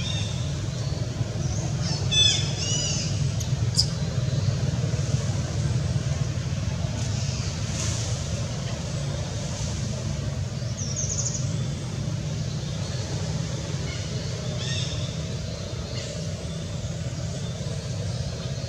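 A steady low motor-like rumble with short high chirps a few times, including a quick fluttering run of chirps about eleven seconds in.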